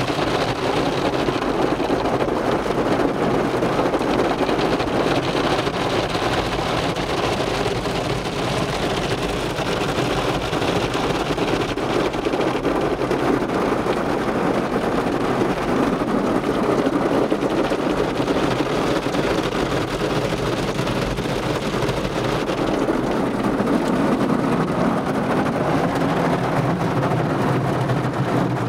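Automatic car wash heard from inside the car's cabin: water spraying and rotating wash brushes scrubbing over the windshield and body, a loud, steady wash of noise.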